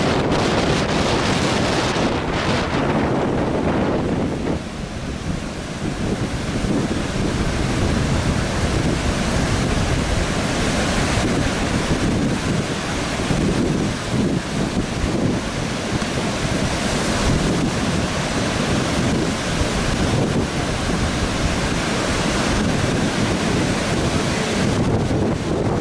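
Heavy storm surf breaking and washing up a beach, with strong wind buffeting the microphone.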